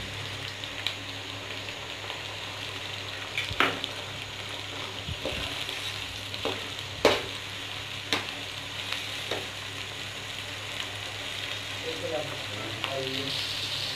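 Chopped tomatoes, onions, ginger and garlic sizzling in hot oil in a metal karahi, with a steady frying hiss. A metal slotted spoon stirring the mix scrapes and knocks against the pan several times, with the sharpest knocks about three and a half, seven and eight seconds in.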